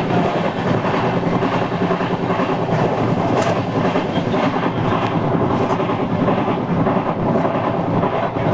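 Passenger train running at speed, heard from on board: steady rumble and rattle of the wheels on the rails, with clickety-clack.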